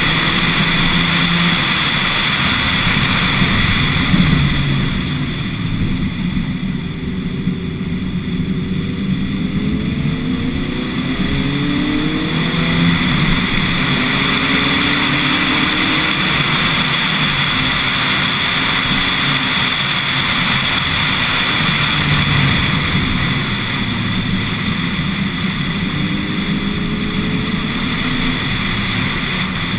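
Lotus Elise S1 111S with a four-cylinder Rover K-series engine driving hard, its engine note rising and falling with throttle and gear changes. The engine eases off briefly a few seconds in, then climbs again. Heavy wind and road rush are on an exterior-mounted camera.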